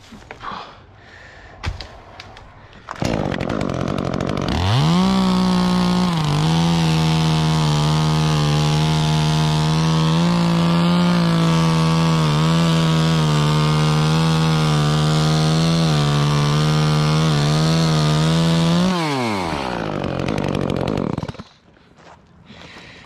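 Two-stroke chainsaw brought up to full throttle and held there for about fourteen seconds, its note dipping slightly as it bites into a limb. It then winds down and stops.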